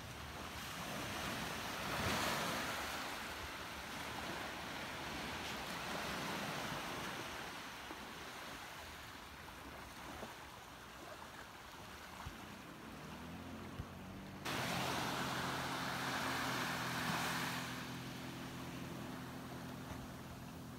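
Wind buffeting the microphone over lapping waves, then about two-thirds of the way in a jet ski's engine comes in with a steady note that suddenly gets louder as the craft speeds off towing a rider.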